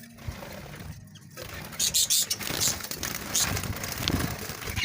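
Budgerigars fluttering and scrabbling about in their cage, with a run of short, sharp rustles and flaps from about two seconds in.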